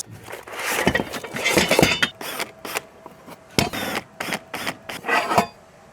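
Metal loudspeaker wall-bracket parts being handled, giving irregular clicks, knocks and short rattles.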